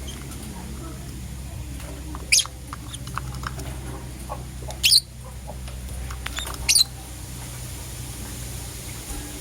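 Lovebirds calling: three short, shrill, high-pitched calls about two seconds apart, with softer chirps in between.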